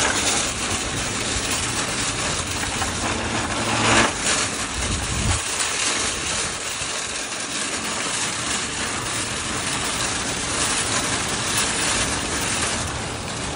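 A long line of nested plastic-and-metal shopping carts rolling over asphalt, their caster wheels and frames rattling steadily, with one louder clank about four seconds in.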